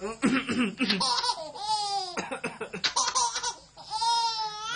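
A baby laughing hard: quick runs of giggles broken by two long, high squeals, one in the middle and one near the end.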